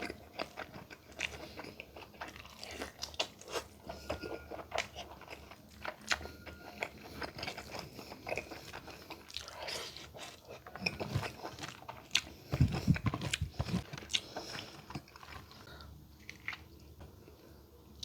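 Close-miked eating: chewing and biting with many small crunches and mouth clicks. About two-thirds of the way through there is a short run of louder low thumps.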